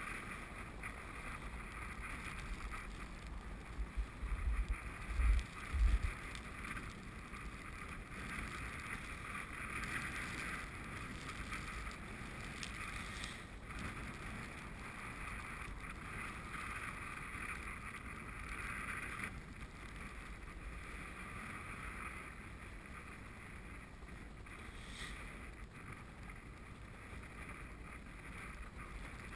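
Wind buffeting the microphone, with a few strong gusts about four to six seconds in, over a faint steady hiss that swells and eases.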